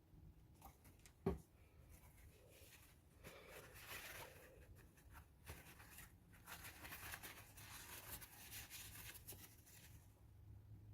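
Faint rustling and scraping of hand work on a paint pour, with one sharp knock about a second in.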